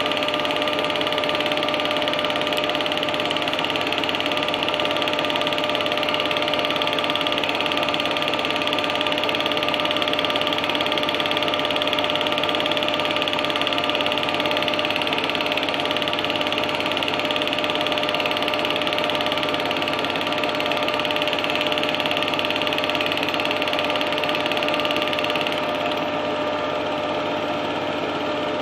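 Cine film projector running steadily: a continuous mechanical whirr and clatter of the film-advance mechanism with a steady motor hum.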